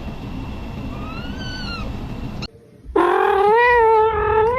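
A cat meowing: a faint short meow about a second in, then, after an abrupt cut, a loud, long drawn-out meow.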